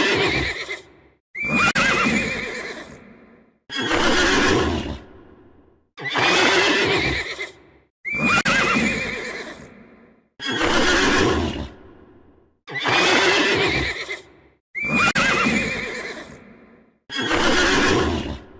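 Horse whinnying over and over, about one neigh every two seconds, each loud at the start and fading out, with short silent gaps between. The calls look alike, as if one whinny is repeated.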